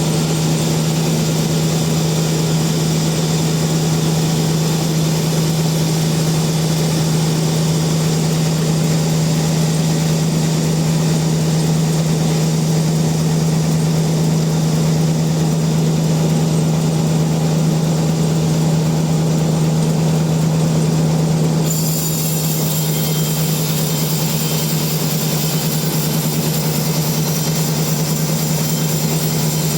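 Sawmill machinery running with a steady, loud hum; the higher part of the sound changes abruptly about 22 seconds in.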